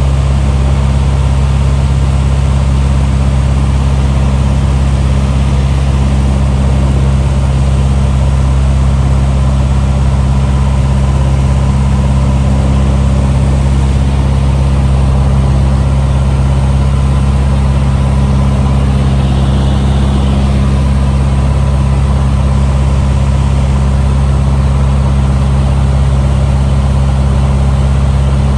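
Cessna 150's Continental O-200 four-cylinder engine and propeller droning steadily, heard inside the cockpit on final approach to landing.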